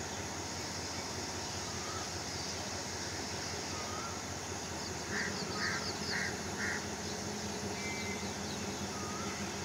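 A bird calls four times, about half a second apart, a little past the middle, with a few fainter chirps around it. Underneath is the steady drone of a diesel locomotive idling.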